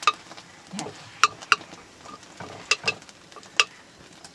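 A metal ladle stirring food in a pot on a wood fire, scraping and knocking sharply against the pot's side about six times at uneven intervals.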